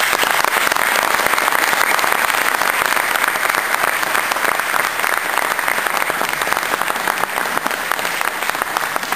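A crowd applauding: many hands clapping together in a dense, steady patter that eases slightly near the end.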